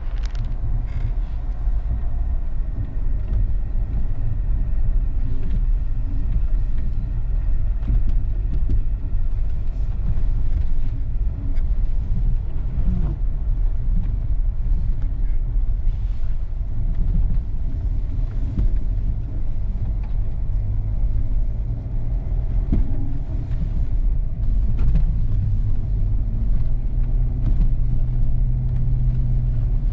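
A 4x4 vehicle driving: the engine runs steadily under a heavy low rumble, with scattered knocks.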